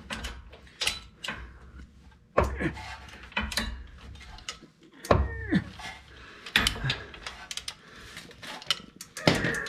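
Metal hand tools clinking and knocking against the Jeep's steering hardware, a scattered run of sharp clanks and taps with dull handling thumps between them.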